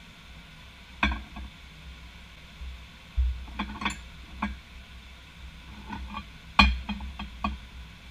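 Ceramic bowls knocking and clinking as they are set down on a plate and a wooden worktop, with sliced vegetables being handled; several sharp knocks spread through, a duller thump about three seconds in and a quick run of knocks near the end.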